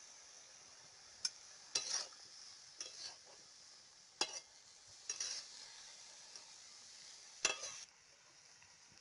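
A flat metal spatula scraping and stirring spinach greens in a metal karahi, about six short scrapes, the loudest near the end. Under them runs a steady high sizzle of the greens frying, which drops away just after the last scrape.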